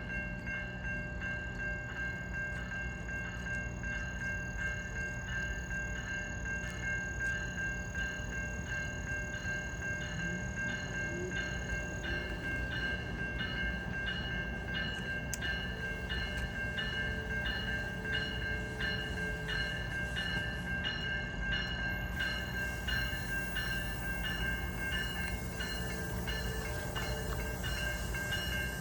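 GO Transit commuter train running past a level crossing, a steady rumble of the passing cars under the crossing bell's rapid, even ringing.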